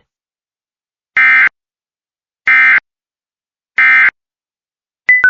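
Emergency Alert System end-of-message (EOM) code: three identical short bursts of digital data tones, about a second and a quarter apart. Near the end, two short steady beeps, the second lower, begin a descending series.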